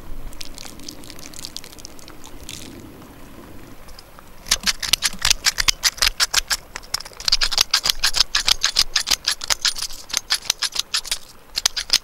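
Pepper mill grinding black pepper onto a block of raw beef: rapid dry clicks that start about four seconds in and run in quick bursts, with a short pause near the end.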